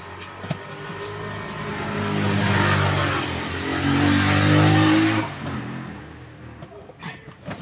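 A motor vehicle's engine passing close by. It grows louder, dips briefly, then climbs in pitch to its loudest about four to five seconds in before dropping away quickly.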